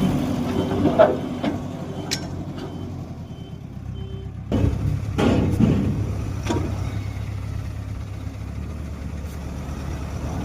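Heavy diesel construction vehicle running, its reversing alarm beeping about twice a second. About four seconds in the beeping stops and the engine gets louder, with a few clunks.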